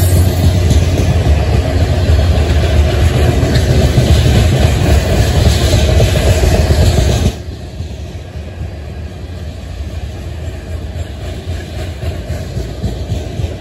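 Covered hopper cars of a freight grain train rolling past, a steady rumble of steel wheels on rail with some clickety-clack. The sound drops abruptly to a much quieter level about seven seconds in.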